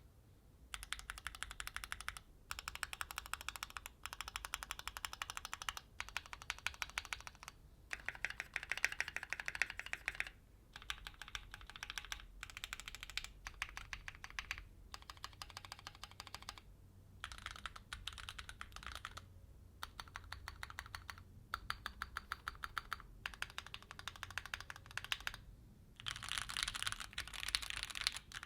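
Keychron Q6 full-size mechanical keyboard with stock Gateron G Pro Red linear switches, typed on fast in bursts of rapid key clacks with short pauses between them, one burst near the end louder than the rest.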